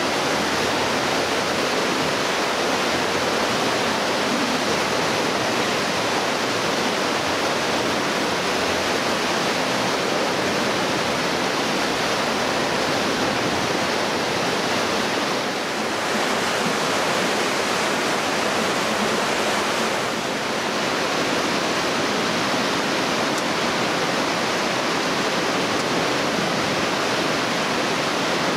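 The Aare river rushing through a narrow rock gorge: a loud, steady wash of whitewater noise, dipping slightly twice in the second half.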